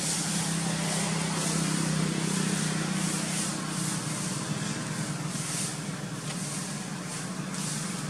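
Steady outdoor ambience: a continuous low hum under a high hiss that swells and fades every second or so.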